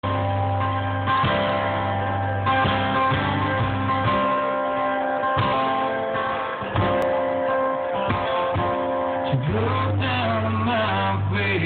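Instrumental opening of a song, with guitar and held steady notes. A melodic line that slides up and down in pitch comes in about nine and a half seconds in.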